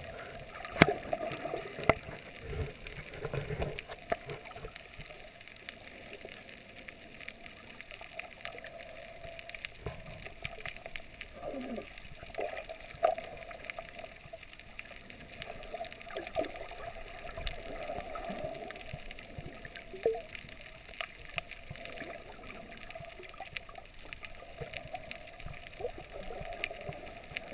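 Underwater sound picked up by a submerged camera: a steady muffled wash of water with many scattered sharp clicks and crackles, and a few short gurgles now and then.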